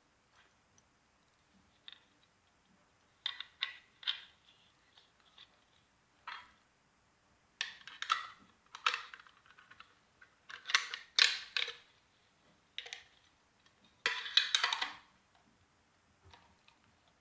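Fidget spinner being handled: irregular short bursts of clicking and rattling, each lasting under a second, with the busiest stretch in the second half.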